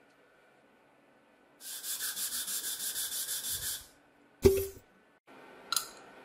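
Sandpaper on a handmade wooden sanding block rubbed quickly back and forth over a wooden board, a rhythmic scraping of about four strokes a second that lasts about two seconds. A single sharp knock with a short ringing tone follows, and a light metallic click comes near the end.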